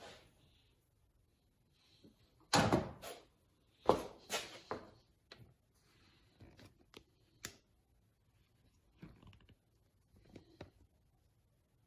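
Scattered clunks and knocks of hand tools on metal in a van's engine bay, with a torque wrench and extension on the motor mount bolts. The two loudest come about two and a half and four seconds in, followed by several lighter knocks.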